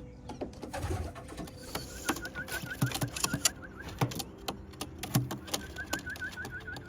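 Homing pigeons cooing, several low coos in the middle, over many sharp clicks and taps and two runs of rapid high chirping.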